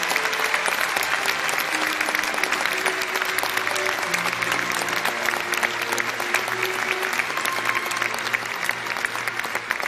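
Audience applauding steadily, with quiet held orchestral notes underneath.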